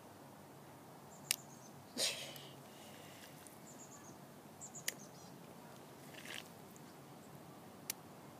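Quiet outdoor background with a few faint, high chirps, three sharp clicks and a short rustle about two seconds in.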